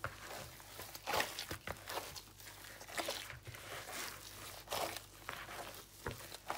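Gloved hand kneading a mashed bulgur and potato mixture in a plastic bowl: irregular squishing, crinkling strokes, about one or two a second.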